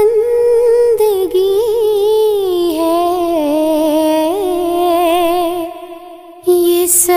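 Background music: a slow vocal melody of long, wavering held notes. It drops out briefly about six seconds in.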